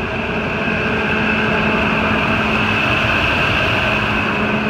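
Ford F-250 pickup's engine idling steadily just after start-up, with the serpentine belt running on a newly replaced tensioner and no grinding or squeal to be heard: the noisy tensioner pulley has been cured.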